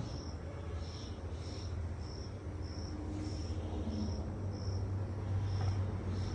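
A cricket chirping in short, evenly spaced high chirps, about one and a half a second, over a steady low hum.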